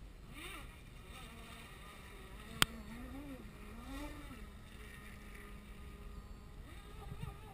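Electric RC catamaran's 1700KV brushless motor on 6S, a faint whine that rises and falls in pitch as the boat runs across the water. A single sharp click about two and a half seconds in.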